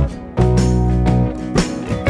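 Background music: strummed guitar over a steady beat with deep bass.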